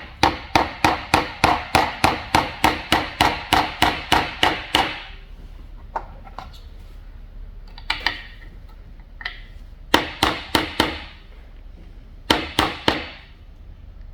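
Small hammer tapping an ejector roll pin back into a rifle bolt: a fast run of sharp metallic taps, about four a second, for the first five seconds, then single taps and short pairs of taps with pauses as the pin seats.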